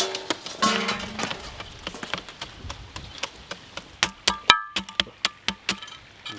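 Chunks of ice clattering and knocking against the metal drum and tray of a drum ice-cream machine as ice is packed around it to chill it. There are many sharp knocks, thickest about four to five seconds in, with a brief metallic ring.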